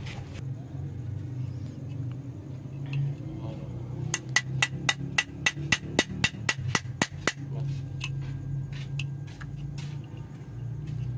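Quick metal-on-metal strikes on a Suzuki Alto's crankshaft pulley and its toothed crank-sensor plate, as the bent teeth that upset the crank sensor are worked straight. About sixteen ringing taps come at about five a second, starting about four seconds in, followed by a few fainter taps.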